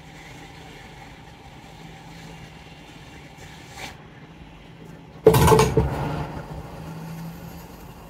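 Steady low hum and hiss of a hot air rework station blowing on a burned regulator chip to desolder it from a laptop motherboard. About five seconds in comes a sudden loud noise that fades over a second or two, and the hum stops shortly after.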